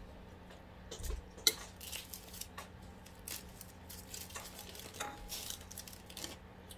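Light clinks and taps of dishes and cutlery handled while eating, scattered and irregular, the sharpest about one and a half seconds in, over a faint steady hum.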